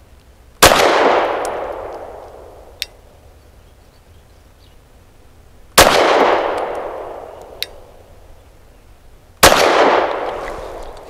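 Three single 9mm shots from a Lone Wolf Arms Dusk 19 pistol firing Fiocchi 100-grain frangible rounds, spaced about five and four seconds apart, each echoing and dying away over a couple of seconds. A light tick sounds between the first and second shots and again between the second and third.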